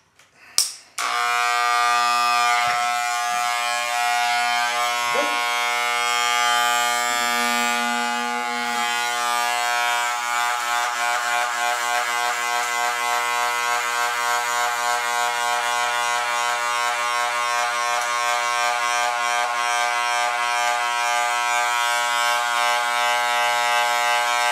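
Electric hair clippers fitted with a number two guard switch on about a second in, then buzz steadily as they cut the hair on top of the head. The buzz pulses slightly from about ten seconds in.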